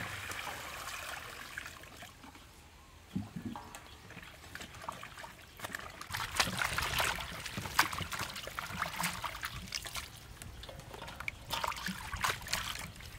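Water poured from a plastic bucket into a stainless steel basin of lettuce and herbs for about the first two seconds, then hands splashing and sloshing the leaves about in the water as they are washed, loudest about six to eight seconds in.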